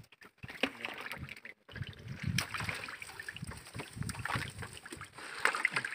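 Fishing net being handled in the bottom of a small boat as fish are picked out of it: irregular rustling with light, scattered taps and knocks against the boat.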